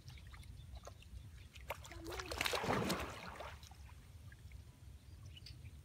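A splash and rush of water in a shallow canal as a person goes into the water, swelling up about two seconds in and dying away over a second and a half, with a brief voice at its start. A low rumble of wind on the microphone runs underneath.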